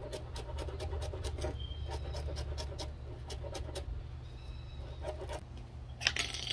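Knife chopping green onions on a plastic cutting board in quick, even strokes, about five a second, with a brief pause around a second and a half in; the chopping stops near four seconds. A short, loud clatter follows near the end.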